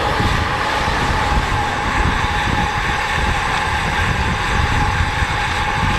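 Steady rushing wind and road noise of riding a road bicycle, with wind buffeting the microphone and a faint steady hum underneath.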